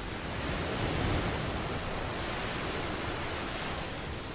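Rough sea surf: waves breaking and churning in a steady rushing wash, slightly louder about a second in.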